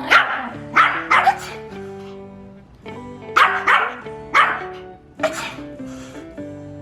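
Pomeranian barking in sharp yaps, about eight in small clusters, over background music.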